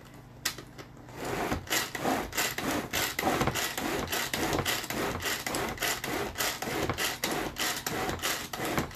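Tupperware pull-cord food chopper pulled over and over in quick succession, a rasping whir with each pull as the blades spin through chopped red pepper in the container. The pulls start about a second in.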